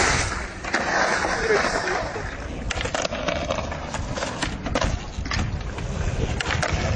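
Skateboard rolling with a low rumble, then a run of sharp clacks and knocks from the board from about the middle on.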